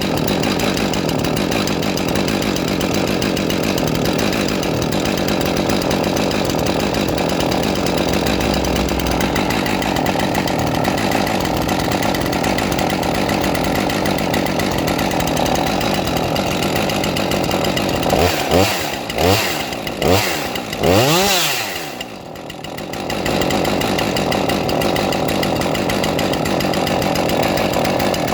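Husqvarna 550XP Mark II two-stroke chainsaw idling steadily during an idle-speed check. About eighteen seconds in it is blipped four times, the pitch jumping up and falling back each time, then drops briefly before settling back to the same steady idle.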